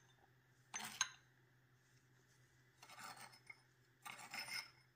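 A metal spoon scraping and clinking against small glass bowls as seasoning is scooped out, in three short bursts about a second in, around three seconds and around four seconds.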